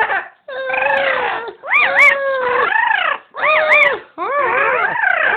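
Pet talking bird imitating crying: a run of about four whining, wavering calls, each about a second long, with the pitch rising and falling.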